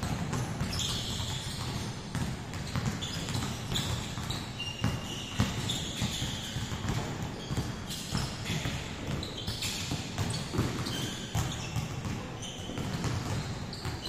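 Several basketballs bouncing irregularly on the court floor during dribbling drills, with short high sneaker squeaks in between, in a large gym hall.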